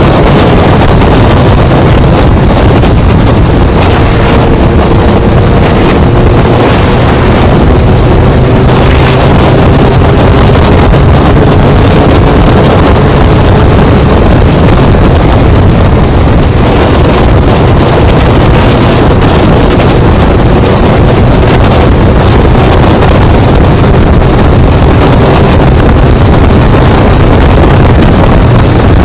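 Heavy wind noise buffeting a helmet-mounted microphone while riding a Suzuki motorcycle at a steady road speed, with the engine's hum faintly underneath.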